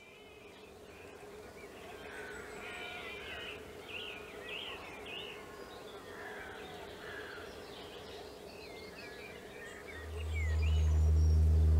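Several songbirds chirping and singing over a steady insect buzz, fading in gently. Music with a deep bass swells in near the end.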